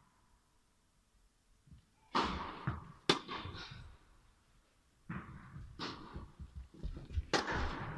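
Tennis ball struck by rackets and bouncing on an indoor court, a handful of sharp hits, each echoing around the hall. The first couple of seconds are nearly quiet before the first hit.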